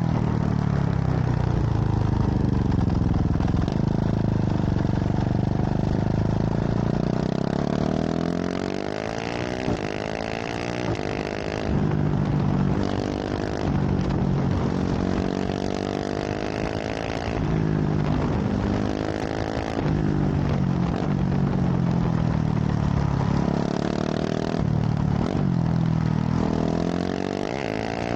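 KTM 690 SMC R single-cylinder engine through a full LeoVince exhaust, under way on the road. At first the engine note sinks and then climbs again as the bike slows and pulls away. From about eight seconds in it accelerates through a run of gear changes, the pitch rising and dropping back with each shift.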